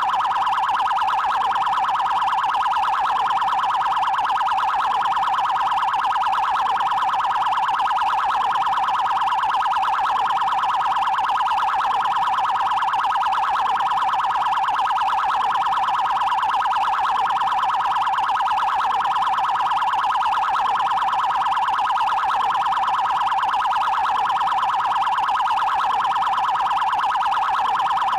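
Brazilian Federal Highway Police (PRF) electronic siren sounding its 'prioridade' tone: a loud, fast warble of quick, even pulses that hold one pitch rather than gliding up and down.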